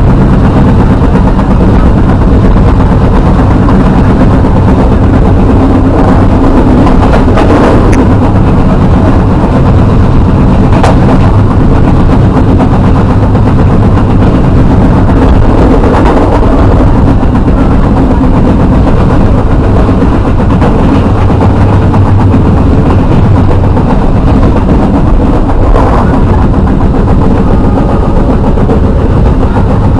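Steady running noise of a passenger train heard from inside the carriage: a loud, continuous rumble of wheels on the track, with a low hum and a couple of brief clicks along the way.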